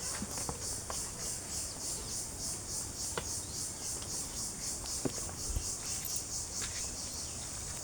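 Insects chirping in a steady, high, pulsing trill of about four pulses a second, with a few short clicks scattered through it.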